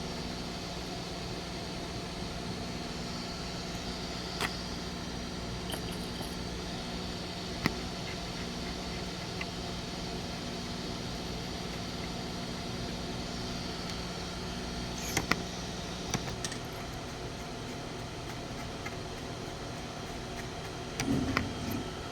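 A steady machine hum with fixed tones, with a few short clicks scattered through it and a brief louder scrape near the end.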